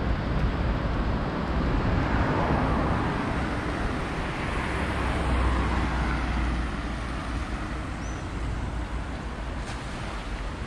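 A car driving past on the road, its noise swelling and then fading, over a steady low rumble of wind on the microphone.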